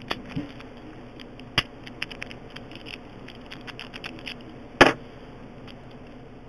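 Small metallic clicks and scrapes of a lock pick and tension wrench working in a 30 mm Brinks pin-tumbler padlock, with two louder clinks, one about a second and a half in and one near five seconds.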